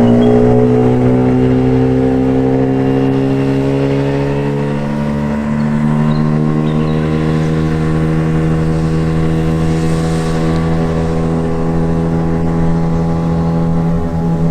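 Tohatsu 9.8 hp two-stroke outboard running at wide-open throttle on a dinghy, its pitch climbing slowly as the boat gets onto the plane and builds toward top speed.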